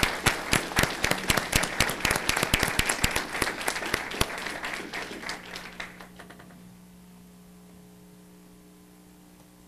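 An audience applauding, with sharp hand claps close to the microphone from the woman at the podium standing out over the crowd. The applause dies away about five or six seconds in, leaving only a faint steady hum.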